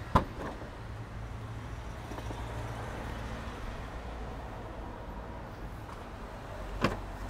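The tailgate latch releases with a click, then the power tailgate of a BMW X5 (F15) rises slowly and steadily under its motors, over a low steady hum. Another short click comes near the end.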